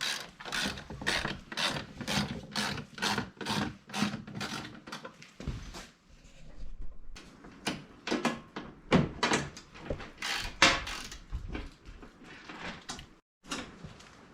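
Hand ratchet wrench clicking in quick even strokes, about three a second, while a door panel insert is bolted on. About six seconds in it turns to slower, uneven clicks and knocks.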